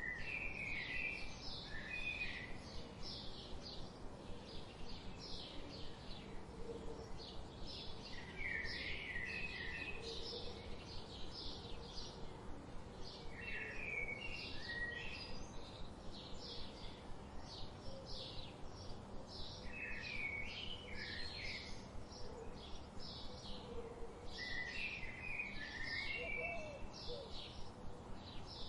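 Wild birds calling: one bird repeats short high chirps about two times a second throughout, while another sings a short warbling phrase every five or six seconds, over a steady outdoor background hiss.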